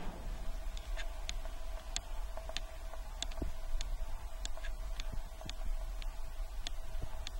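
Footsteps on pavement at a steady walking pace, sharp ticks a little under two a second, over a faint steady hum of the street.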